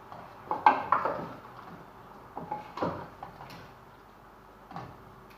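A cooking utensil knocking and clattering against a pot in short clusters: several knocks about half a second to a second in, more near three seconds, and one more near the end.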